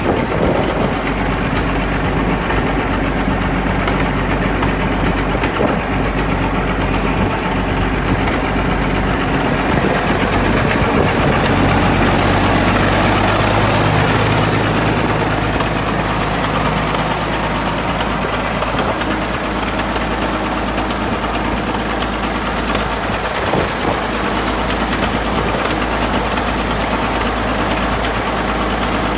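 Engine of a Caterpillar D8 crawler tractor running steadily at idle, louder for a few seconds about halfway through.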